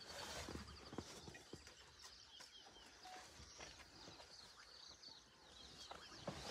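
Near silence outdoors, with faint bird calls, short high chirps repeated in little runs, and a few soft clicks.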